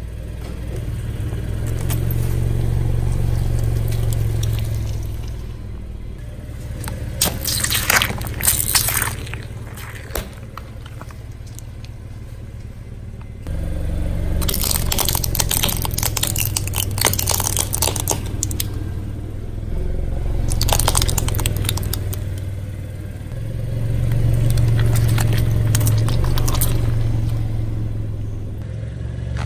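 Car engine running low while the tyre rolls slowly over objects on concrete and crushes them. A burst of crunching comes about a quarter of the way in, then a longer run of cracking from a row of small plastic toy cars just after the middle, and more crushing near the end.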